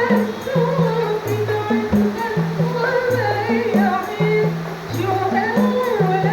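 A rebana group performing: a voice sings a wavering melody over a repeating pattern of pitched frame-drum beats, with light jingle strokes.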